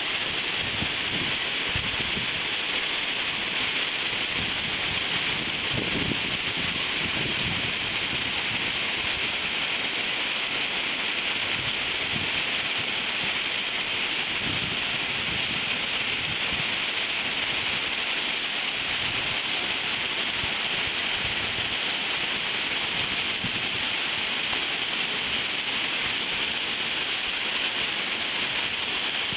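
Steady rushing hiss of water pouring down a small waterfall, with occasional low buffets of wind on the microphone.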